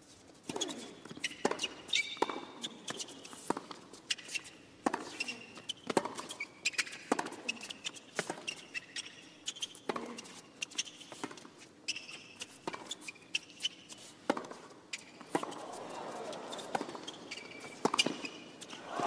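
A long tennis rally on a hard court: racket strikes on the ball roughly once every second or so, with sneakers squeaking on the court between shots. A crowd murmur swells near the end.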